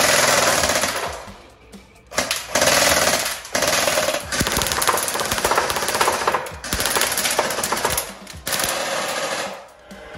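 Tokyo Marui PS90 HC high-cycle electric airsoft gun firing full-auto, a very fast rattling stream of shots from its motor and gearbox. It fires in about four bursts, the longest about five seconds.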